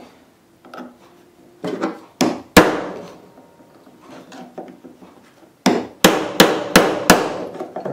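Hammer strikes on a small metal workpiece, a folding knife being worked apart to free parts that are hard to get out: two sharp blows about two seconds in, then five quicker blows near the end, each ringing briefly.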